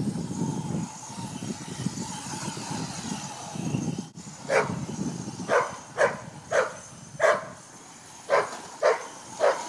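A dog barking repeatedly, about eight short barks starting about halfway through. Before the barking, a thin steady whine, likely the RC truck's electric motor, runs over rumbling wind noise on the microphone.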